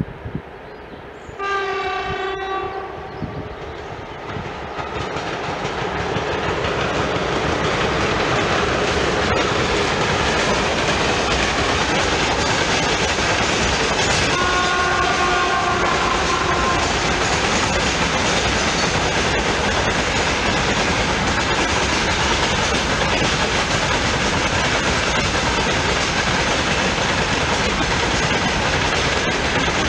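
A 3ES4K "Donchak" freight electric locomotive sounds its horn for about a second, roughly a second and a half in. Its freight train of gondola wagons then passes with a steady noise of wheels on rails that builds over the first several seconds, and another horn sounds briefly around fifteen seconds in.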